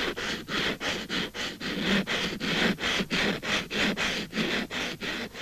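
Nail file rasping back and forth across a fingernail, amplified, in an even rhythm of three to four strokes a second.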